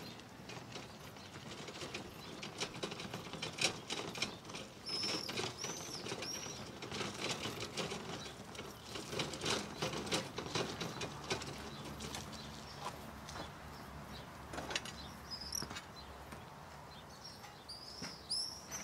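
Irregular clicking and rattling from a hand truck carrying a wooden display board as it is wheeled over a dirt yard, busiest in the first two-thirds. Birds chirp briefly a few times: about five seconds in, again later on, and near the end.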